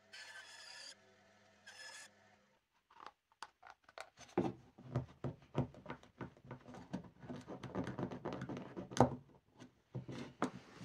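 A bandsaw running briefly in short snatches, then small wooden box parts clicking, knocking and rubbing against each other and the workbench as the drawer is slid into the box and pulled out, with the sharpest knock about nine seconds in.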